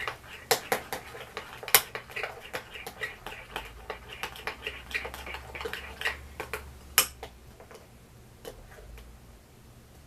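Spoons clicking and tapping against bowls while stirring thickening glitter slime. The clicks come thick and fast for about seven seconds, then thin out to a few.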